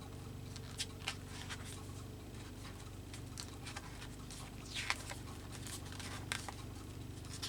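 Paper being handled at a craft table: scattered light taps, clicks and rustles of paper cut-outs and book pages, with a longer rustle about five seconds in, over a steady low hum.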